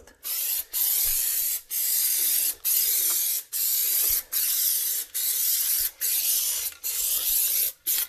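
Aerosol can of spray adhesive hissing in a run of short sprays, roughly one a second with brief breaks between, as adhesive is laid onto the floor underlayment.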